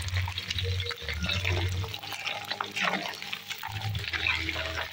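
Small eels deep-frying in hot oil in a metal wok, the oil sizzling and crackling steadily while a metal spatula stirs them. A low rumble comes and goes underneath.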